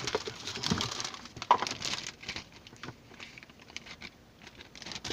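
Plastic wiring-harness connectors and cables being handled and plugged into the back of a car stereo head unit: a run of small clicks and rustles in the first two seconds or so, then fainter, scattered handling noises.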